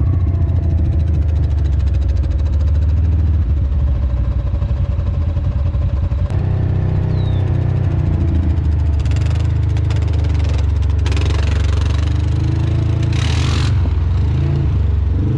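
ATV engine running steadily as it rides a dirt trail, with music playing over it. A short hiss comes and goes a few times in the second half, and there is a single knock about six seconds in.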